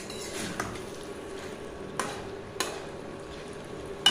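Spatula stirring chicken frying in thick masala in a kadai, over a steady soft sizzle. A few sharp taps of the spatula against the pan, the loudest near the end.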